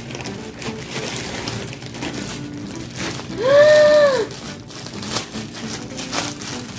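Plastic packaging crinkling as a fidget toy is unwrapped, over faint background music. About halfway through, one loud pitched tone rises and falls for about a second.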